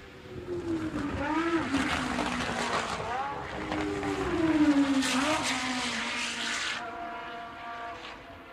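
Formula One race cars passing at speed, two loud passes with the high engine note dropping in pitch as each goes by, the second loudest about five seconds in. It fades to a fainter, steadier engine tone near the end.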